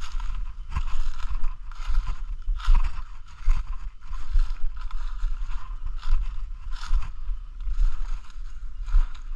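Footsteps crunching through dry leaf litter at a steady walking pace, about one and a half steps a second, over a low rumble.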